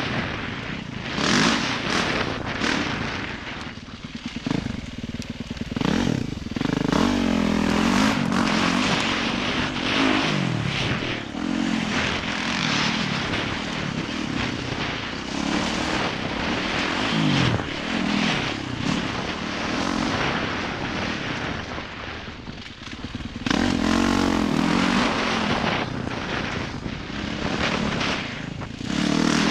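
Yamaha YZ450F dirt bike's single-cylinder four-stroke engine being ridden hard. Its note climbs under throttle and drops off several times as the rider backs off for turns, with wind rushing over the microphone.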